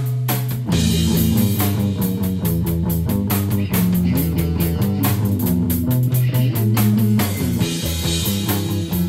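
Rock song with guitar, bass and a drum kit keeping a steady beat; the bass and the full band come in less than a second in.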